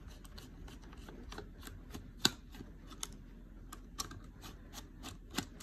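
Screws being backed out of a Dyson V8 vacuum's plastic battery pack: faint, irregular small clicks and taps of the tool on the screws and casing, with one sharper click about two seconds in.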